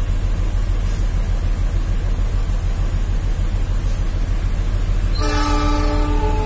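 Steady low diesel rumble as a freight train's locomotive approaches the station, with its horn sounding for just over a second about five seconds in.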